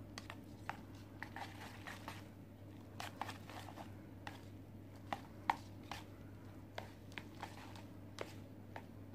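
Wooden chopsticks stirring sauced instant ramen noodles in a paper cup: faint, irregular clicks and taps as the sticks knock the cup and work the noodles.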